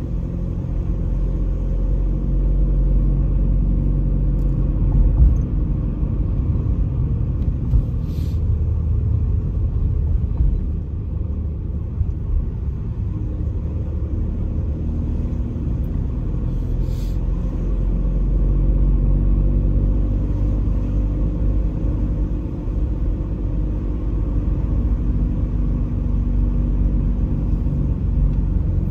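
A vehicle driving along a street: a steady low rumble of engine and road noise, the engine's pitch drifting up and down with speed. Two short sharp ticks come about 8 and 17 seconds in.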